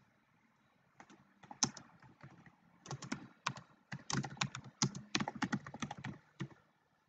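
Typing on a computer keyboard: a run of quick key clicks that starts about a second in, comes thicker in the middle and stops shortly before the end.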